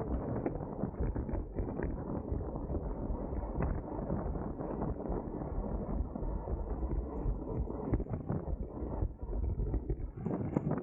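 Wind rushing over the microphone of a camera on a road racing bicycle at speed, a steady buffeting noise.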